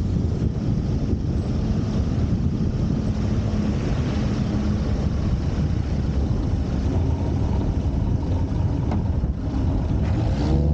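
Wind rushing hard over a wing-mounted microphone, with the Pipistrel Virus SW's 80 hp Rotax 912 engine and propeller humming underneath as the light aircraft flies low over the runway to land.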